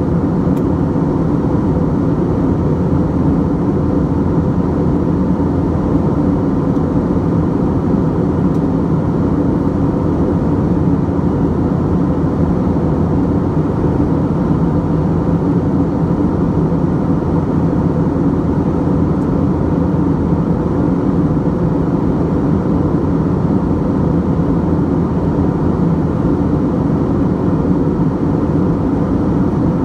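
Steady cabin noise of an Airbus A321-231 climbing out after takeoff: a constant rush of air and the hum of its IAE V2500 turbofan engines, unchanging in level.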